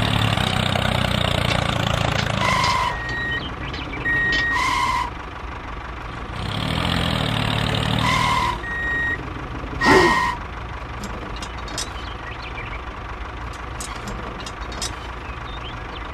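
A vehicle engine runs in two spells, with high electronic beeps like a reversing alarm several times between and after them. A short loud burst comes about ten seconds in.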